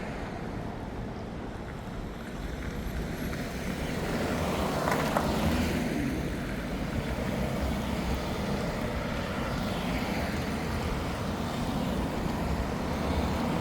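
Road traffic going by on a city street: a steady rumble of car engines and tyres, swelling as a vehicle passes close about five seconds in.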